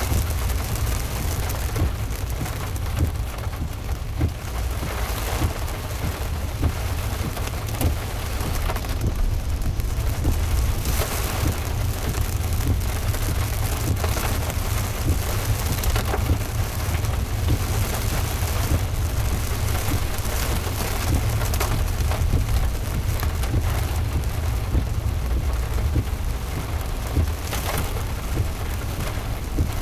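Heavy rain falling on a moving car: a dense, steady spatter of many small drop hits over a constant low rumble.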